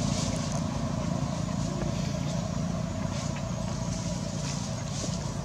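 A motor vehicle's engine running steadily, a low hum that fades slightly, with a few faint ticks or rustles over it.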